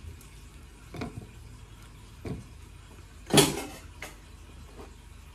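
A kitchen knife knocking against dishes while banana slices are cut and cleared: two light knocks, then one loud, ringing clatter about three and a half seconds in.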